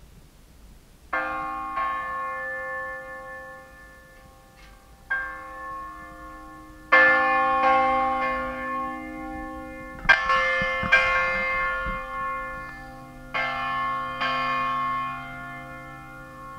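Hanging bronze bell rung by hand, struck by its clapper about eight times at uneven intervals. Each stroke rings on and is still fading when the next one comes.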